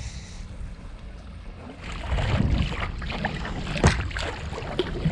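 Wind rumbling on the microphone while a kayak is paddled on open water, with irregular splashes and drips from the paddle. The wind and splashing get louder about two seconds in, and there is one sharp knock or splash just before four seconds.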